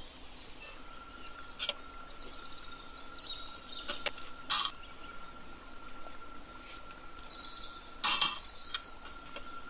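Metal spoon clinking and scraping against the stainless-steel inner pot of an Instant Pot while cooked rice pilaf is scooped, with a handful of sharp clinks, the loudest about eight seconds in.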